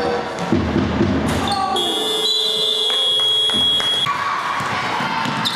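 Indoor basketball game: ball and sneaker knocks on the hall floor with players' voices, then one long shrill whistle blast of about two seconds, typical of a referee stopping play, ringing in the large gym.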